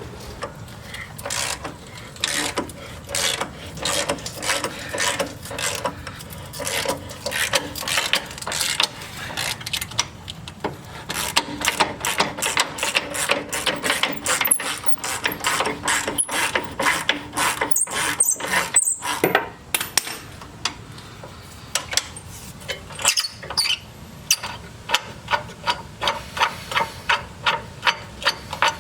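Ratchet wrench clicking in repeated runs, several clicks a second, as suspension bolts are worked on a Jeep's control-arm mounts, with a few brief high squeaks partway through.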